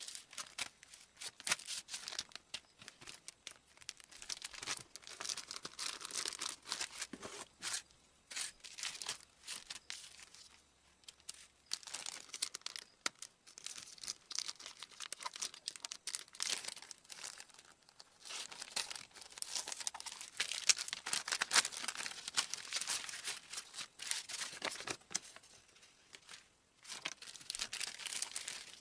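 Plastic courier mailer bag being handled, crinkled and cut open with scissors: irregular crackling and rustling of the plastic, with a couple of brief pauses.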